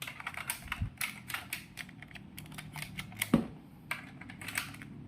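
Plastic toy double-barrel shotgun being handled and worked: a quick, irregular run of light plastic clicks and rattles, with a soft thump about a second in and another past the three-second mark.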